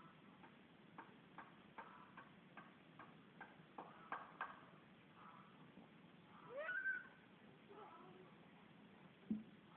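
A cat meowing: a string of short faint chirps, about two a second, then one longer rising-and-falling meow a little past the middle, which is the loudest sound. A dull thump comes near the end.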